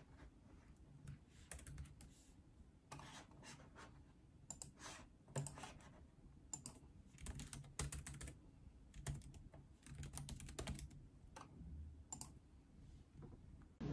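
Typing on a laptop keyboard: quiet key clicks in irregular quick runs with short pauses between.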